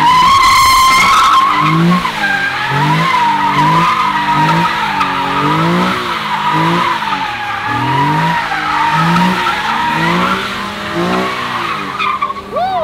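Car tyres squealing without a break as a car slides sideways in tyre smoke, the squeal wavering in pitch. Beneath it the engine revs in quick repeated surges, about one and a half a second, as the throttle is worked to keep the wheels spinning.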